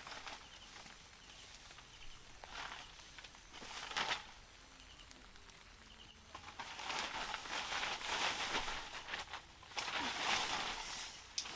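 Intermittent rustling and scuffing in uneven bursts, the longest lasting a few seconds, with a sharp click near the end.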